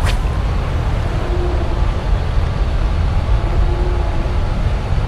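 A steady low rumble, with one sharp swish or click right at the start.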